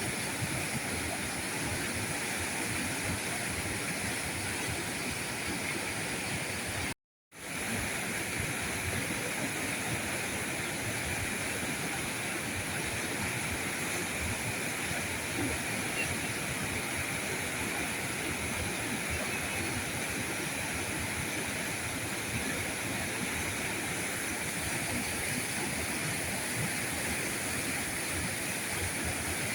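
River current flowing steadily. It drops out to silence for a moment about seven seconds in, then fades back up.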